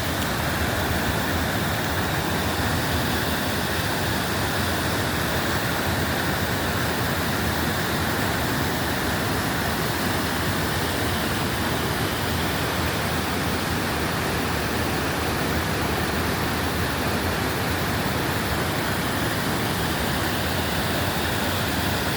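Waterfall rushing: falling water as a steady, unbroken hiss that holds one level throughout.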